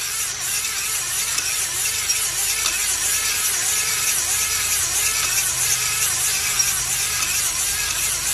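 Drill-driven cylinder hone with medium stones spinning and grinding inside a cylinder bore of a Suzuki F10A engine block, lubricated with kerosene. The grinding rises and falls in a steady rhythm about twice a second as the hone is worked up and down the bore.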